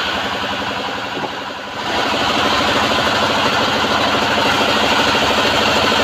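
Homemade sawmill bandsaw running steadily with its drive engine; just under two seconds in the sound grows louder and noisier, typical of the blade working through the wood.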